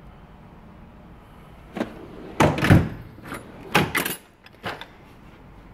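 Metal tool-chest drawers sliding closed and open on their runners, with a few sharp clattering knocks; the loudest comes about two and a half seconds in.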